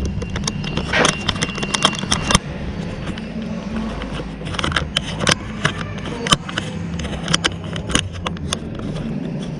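Handling noise of a body-worn camera being fixed in place: a quick run of clicks and knocks in the first couple of seconds, then scattered clicks and taps. A steady low hum runs underneath.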